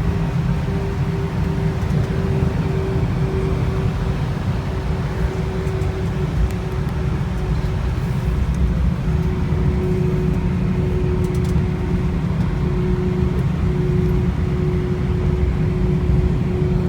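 Airbus A319 cabin noise while taxiing: a steady low rumble with the engines' hum and a constant mid-pitched tone running through it.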